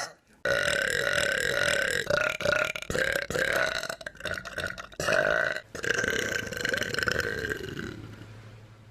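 A person burping one very long, drawn-out burp lasting about seven seconds. It catches briefly a few times and trails off near the end.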